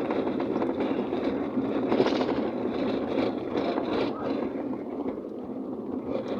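A car being driven, with steady road and tyre noise and scattered short knocks.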